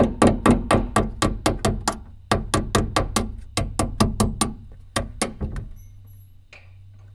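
Hammer tapping rapidly, about five blows a second in short runs with brief pauses, stopping about six seconds in. The blows fall while a rusted elevator bolt is being worked free.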